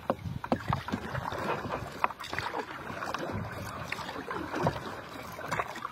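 Paddle strokes on calm water from a stand-up paddleboard: a steady wash of moving water with several short splashes and drips as the paddle dips and lifts.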